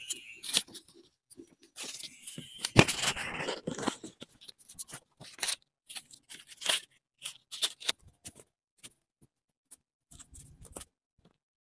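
Paper and card being handled by hands: a run of short rustles and crackles, with a longer crinkling stretch about two to four seconds in.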